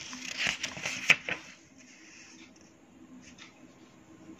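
A hand and pen brushing on a sheet of paper: a short rustle with a few light taps in the first second and a half, then only a faint low hum.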